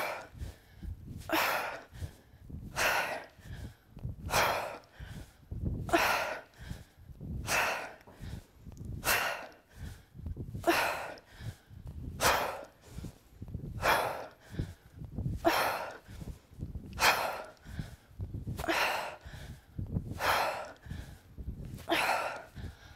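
A woman's sharp, forceful exhalations, one about every one and a half seconds, each breath timed to an exercise repetition during a set of fifteen.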